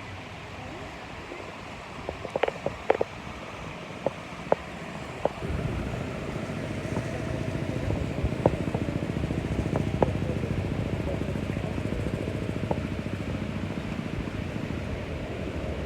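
An engine running steadily close by, louder from about five and a half seconds in, with a few sharp knocks just before.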